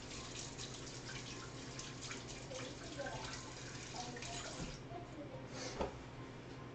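Water running faintly from a kitchen faucet into a sink, with small knocks and clinks of washing up and one sharper clatter near the end.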